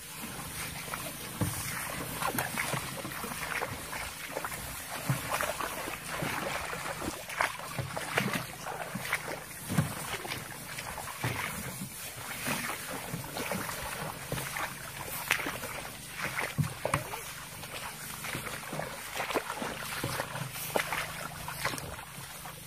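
Several people walking through tall, wet grass: irregular swishing and rustling of stalks brushing against legs and carried jugs, with footsteps on soggy ground.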